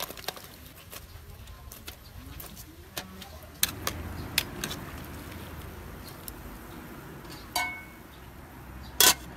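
Metal cookware clinking and knocking as vegetable pieces are tipped from a metal bowl into a pan of boiling water over a wood fire, over a low steady bubbling. A single loud clank comes near the end.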